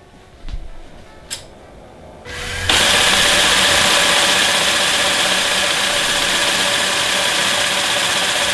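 Electric air compressor of a Lego pneumatic crane rig switching on about two and a half seconds in and running steadily, building up air pressure for the crane's pneumatic grabber. A few small clicks come before it starts.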